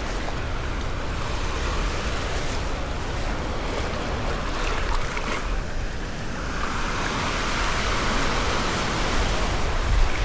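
Gulf surf breaking and washing up the beach, with wind rumbling on the microphone; a louder wave rushes in about two-thirds of the way through.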